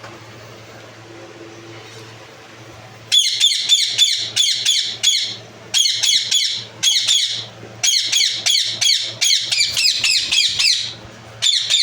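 Ringneck parakeet squawking in rapid bouts of short, harsh calls that slide down in pitch, several a second, starting about three seconds in over a low steady hum.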